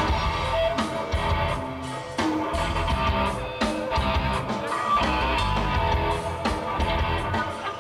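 Live rock band playing through a stage PA: amplified electric guitars and bass over a drum kit with regular beats.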